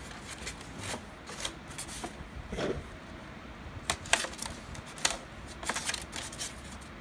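Styrofoam packing blocks being lifted from a cardboard box and pulled apart by hand: scattered creaks, crackles and taps of foam rubbing on foam and cardboard, busiest about four seconds in and again near the end.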